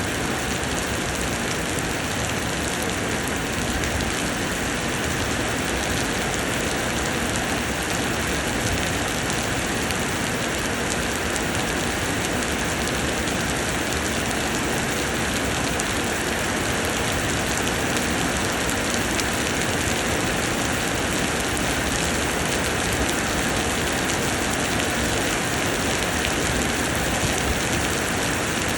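Summer rain pouring down steadily, an even hiss of rainfall with scattered individual drops ticking through it.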